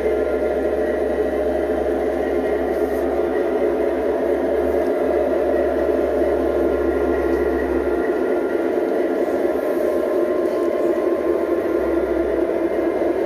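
Large-scale (G-scale) model double-stack intermodal cars rolling steadily along the track, a continuous whir of wheels on rail.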